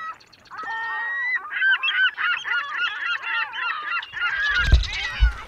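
A flock of geese honking, many calls overlapping one another. Low rumbling joins in during the last second.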